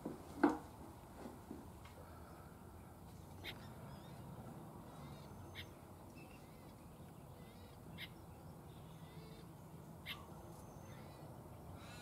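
Wetland ambience of wild birds: one louder, lower call about half a second in, then four brief high chirps about two seconds apart, over a steady low background noise.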